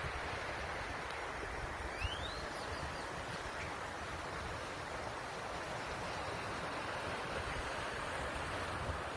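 Steady outdoor rushing noise with a low, uneven rumble of wind on the microphone. About two seconds in comes one brief rising chirp.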